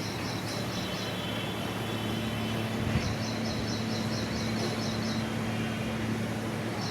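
Outdoor ambience: a steady low hum under trains of rapid, high, repeated chirps, each train lasting about two seconds, one starting about three seconds in and another near the end.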